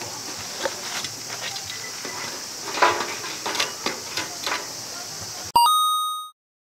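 Faint voices and small clicks over a steady hiss. About five and a half seconds in, a bright bell-like chime sound effect rings out and fades within a second into dead silence, marking a title-card transition.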